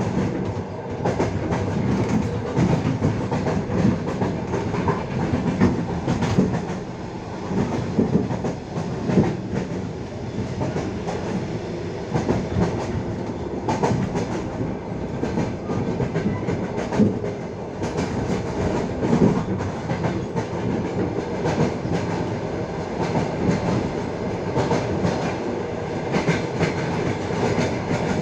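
Passenger train's carriage wheels clattering over the rail joints as the train runs along the line: a steady rumble with frequent, irregular clacks, heard from inside the carriage at the window.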